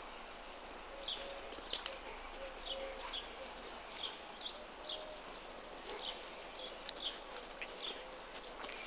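Small birds chirping, short high calls repeated about every half second, over faint scuffs and thuds of two Rhodesian Ridgebacks' paws as they play-chase on grass.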